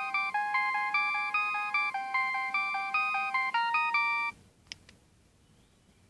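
Polyphonic ringtone playing from a Nokia 6610i's speaker: a quick, bright melody of short chords that cuts off a little over four seconds in. A faint click follows.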